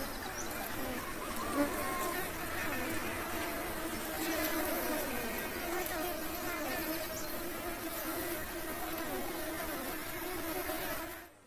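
Many honey bees buzzing together: a dense, wavering hum of overlapping wingbeat tones that drops away abruptly near the end.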